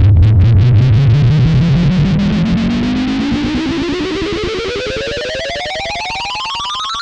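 Electronic riser sound effect: a distorted synth tone climbing steadily in pitch from low to high, pulsing rapidly, the pulses quickening as it rises.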